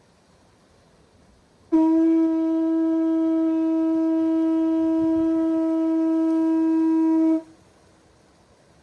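Conch shell trumpet (Hawaiian pū) blown in one long, steady, unwavering note. It starts sharply about two seconds in, holds for about six seconds, and cuts off cleanly.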